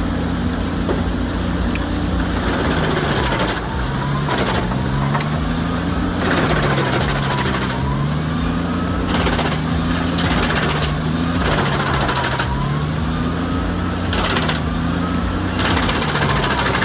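Large wood chipper's engine running under heavy load, its pitch dipping several times as it bogs down on the feed and then recovering, with repeated crunching and cracking of wood being chipped.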